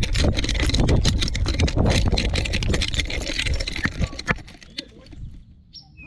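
Weimaraner running with a camera on its collar: the collar and camera jostle and the dog's fur and ear rub over the microphone, making a dense, loud clatter of knocks and scratches over a low rumble, which dies down about four and a half seconds in.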